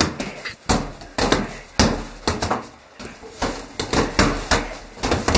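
Fists landing on a hanging heavy punching bag, struck in turn from both sides: an irregular run of about a dozen sharp slaps and thuds, two or three a second.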